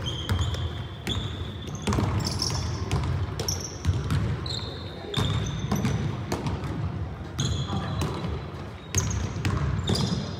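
A basketball bouncing on a hardwood gym floor during pickup play, with irregular thuds, and short high sneaker squeaks as players run and cut on the court.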